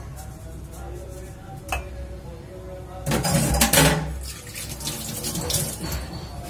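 A steel strainer clinks once against a steel mixing bowl. About three seconds in, a kitchen tap runs for a little over a second, with steel dishes clattering around it.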